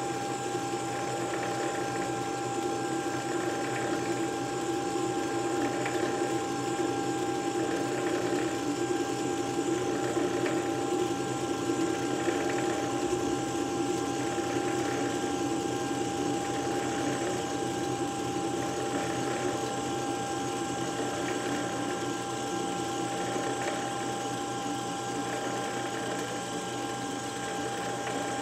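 Metal lathe running steadily at its slowest speed, 140 RPM, while a 1/2-inch reamer cuts through the bore of a bronze bearing block: an even machine hum with a constant high tone and no chatter.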